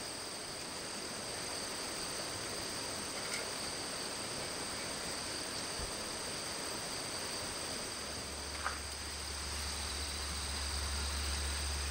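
Outdoor ambience of a steady, high-pitched insect chorus over an even hiss. A low hum comes in about eight seconds in.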